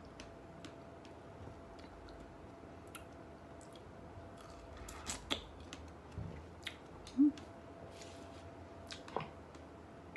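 Mouth sounds of someone chewing a fresh strawberry: irregular soft wet clicks and smacks, with a short hum about seven seconds in.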